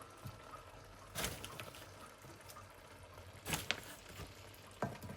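Momos (dumplings) being dropped into a pot of hotpot broth: a few short, soft splashes, about a second in, midway and near the end.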